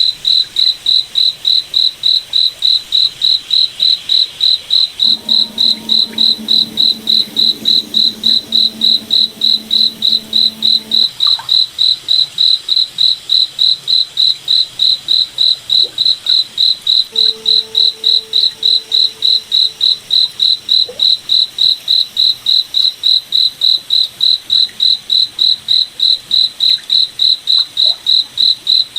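A cricket chirping steadily at a high pitch, about three to four even chirps a second. A quieter low drone comes in twice underneath.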